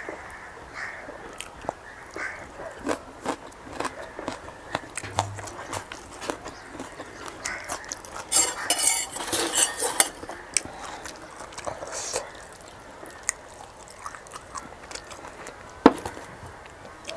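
A person eating a meal of pork intestine and rice close to the microphone: scattered clicks and clinks of utensils against dishes, a denser noisy stretch about halfway through, and one sharp knock near the end.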